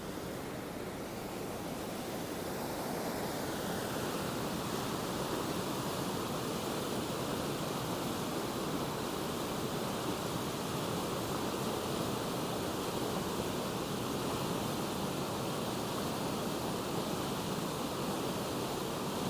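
Steady rush of the River Aire running high and fast in flood after heavy rain, growing louder over the first few seconds and then holding.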